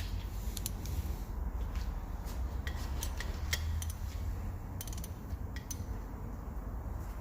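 Hand tools working on a cylinder head: a ratchet and torque-angle gauge being fitted onto the camshaft bearing cap bolts, giving scattered, irregular light metallic clicks over a steady low hum.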